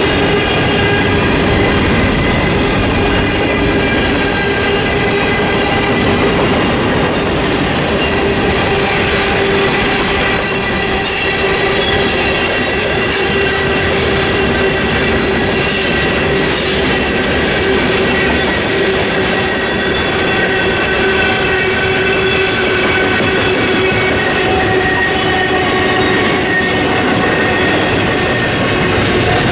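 Norfolk Southern freight train's cars rolling steadily past at a grade crossing, wheels clattering over the rails, with steady squealing tones and a series of sharp clanks about halfway through.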